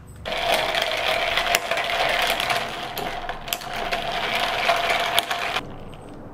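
A small electric motor whirring with a steady whine, switched on just after the start and cut off abruptly after about five seconds.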